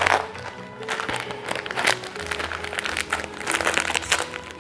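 Background music with the crinkling and crackling of a plastic snack wrapper being handled and cut open with scissors.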